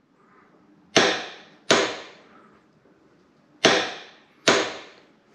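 Click-type torque wrench clicking four times, in two pairs: sharp metallic clicks with a short ring, as the wrench reaches its 40 newton-metre setting.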